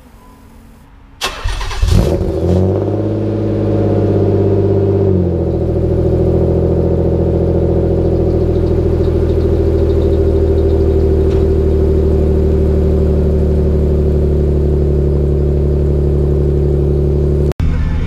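Nissan 300ZX's V6 being started through its new exhaust, heard at the tailpipes. It cranks and catches about two seconds in, runs at a raised idle for a few seconds, then settles to a steady idle.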